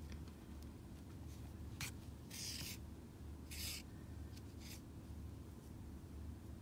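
Yarn rubbing and rustling as it is drawn through the work by hand, in four or so short strokes, over a low steady hum.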